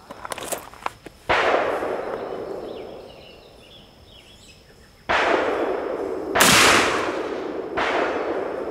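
Original Colt 1860 Army .44 cap-and-ball revolver firing black-powder rounds: four sharp reports a second or more apart, the third the loudest, each with a long echoing tail. The revolver is firing each time in a function test after its nipples were filed down.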